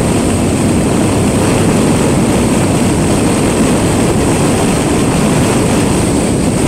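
Motorcycle at road speed: a steady, loud rush of wind over the microphone with engine and road noise underneath, during an overtake.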